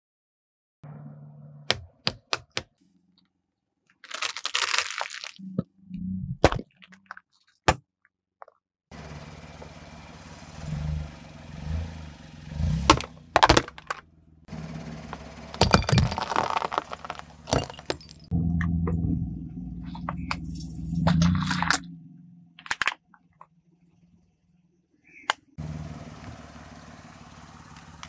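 A car tyre rolling over and crushing objects such as plastic toys in a series of short, abruptly cut clips: sharp cracks and crunches as things break, over a low steady engine hum, with brief silences between clips.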